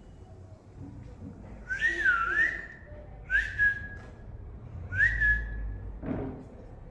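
Whistling: three whistles about a second and a half apart, the first swooping up, down and up again, the next two sliding up and then held on one note. A short, sharp sound near the end.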